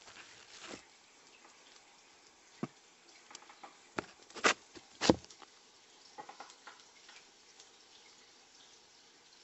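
African bullfrog eating nightcrawlers: a handful of short wet clicks and smacks from its mouth, the two loudest close together about halfway through, fainter ones a little after.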